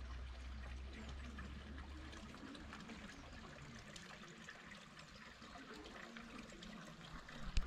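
Running water splashing and trickling, with a low hum under it for the first couple of seconds.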